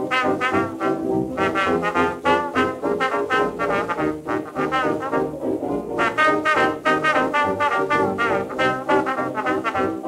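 1920s dance orchestra playing an instrumental fox trot, heard from a 1926 Victor Orthophonic 78 rpm shellac record.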